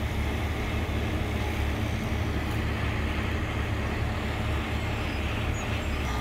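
Water cannon truck running steadily: a constant low engine drone under an even rushing hiss from its water jet.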